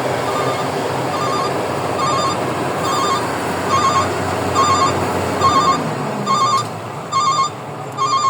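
An electronic trilling ring repeats about every 0.7 s and grows steadily louder, over the steady noise of running machinery that drops away about six seconds in.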